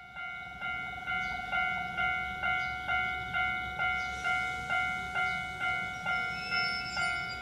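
Japanese railway level-crossing alarm ringing: an electronic bell tone struck over and over, about twice a second, over a low rumble.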